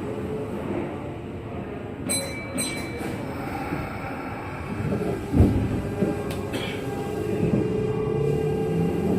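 Kintetsu 1233 series electric train running, heard from inside the car: a steady rumble, a brief high wheel squeal about two seconds in, two sharp knocks over the rails about halfway, then a steady hum near the end.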